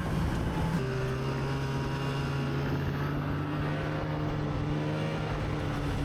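Snowmobile engine running at a steady cruising speed, its pitch dropping a little about a second in as the throttle eases, then holding steady.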